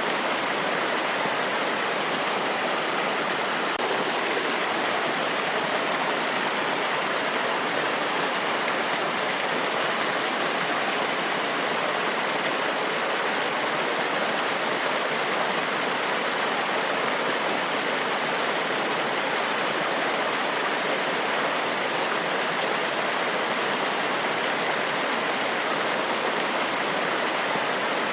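Waterfall and stream water rushing over rocks, a steady, even rush without a break.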